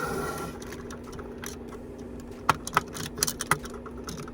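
Small plastic makeup products clicking and clattering as they are handled and set into an organizer drawer. There is a brief noise at the start, then a handful of sharp clicks bunched toward the end, all over a steady low hum.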